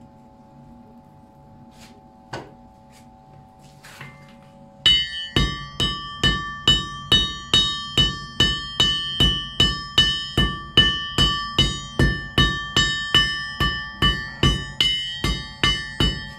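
Blacksmith's hand hammer striking a workpiece on an anvil in a steady rhythm, a little over two blows a second, each blow leaving a bright metallic ring. The hammering starts about five seconds in, after a faint steady hum and a single knock.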